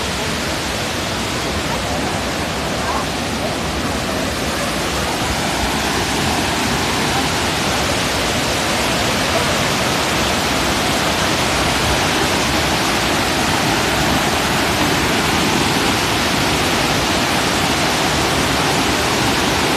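Curug Malela waterfall and the rocky river below it rushing: a steady, full wash of falling water that grows slightly louder.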